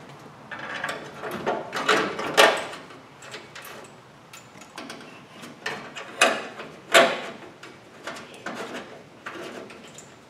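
Fan shroud and mounting parts being handled against a car radiator: a series of scrapes, knocks and rattles, the loudest about two, six and seven seconds in.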